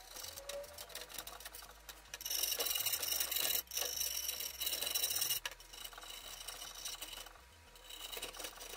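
A screwdriver scraping old high-temperature silicone adhesive out of the rope-gasket groove of a metal stove door, in quick repeated strokes that are loudest for a few seconds in the middle.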